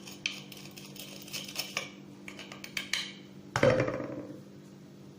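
Metal spoon clinking and scraping against a mixing bowl as a spoonful of yeast is added, with one heavier knock about three and a half seconds in.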